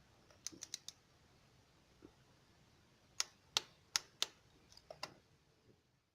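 Scattered sharp clicks and taps of hand tools and parts being handled: four quick light ones about half a second in, four louder ones spaced about a third of a second apart in the middle, then a few fainter ones.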